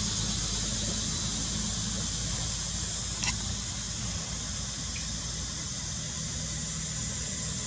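Steady outdoor background noise: a high hiss over a low rumble, with one short high squeak about three seconds in.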